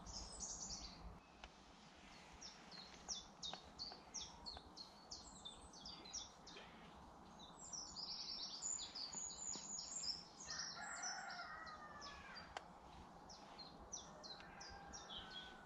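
Faint outdoor birdsong: many small birds chirping in quick, short high notes throughout. About ten and a half seconds in, a lower, longer call with several pitches runs for a second or so.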